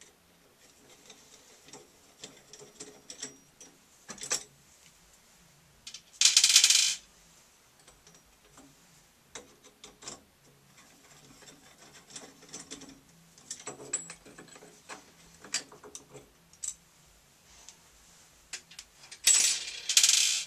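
Small metallic clicks and scrapes of a screwdriver turning out the screws of the metal plate on a Price Pfister shower valve, and of the plate being worked loose. Two louder, noisy scrapes of about a second each come about six seconds in and near the end.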